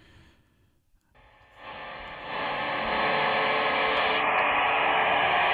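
Sangean HDR-14 portable radio's speaker on the AM band, tuned to 580 kHz, playing mostly static hiss. The hiss comes in about a second in, rises over the next second and then holds steady.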